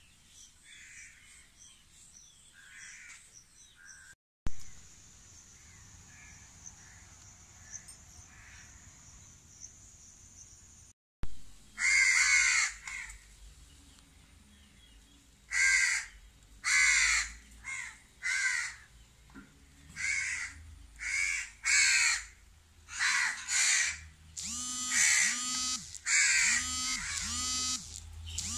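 House crows cawing loudly and repeatedly, several birds calling in quick succession, starting about twelve seconds in. Before that there are only faint distant calls over a steady high hum.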